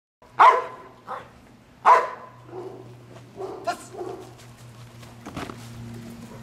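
Trained protection dog barking: two loud barks about half a second and two seconds in, then several quieter ones.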